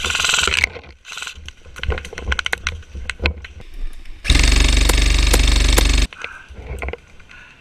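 Airsoft electric gun firing one long full-auto burst of about two seconds, past the middle: a steady, loud buzzing rattle of the gearbox cycling. Before it come a short burst of noise at the start and scattered sharp clicks and snaps.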